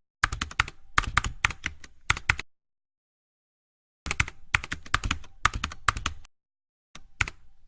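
Rapid key clicks like typing on a keyboard, in three runs separated by dead silence.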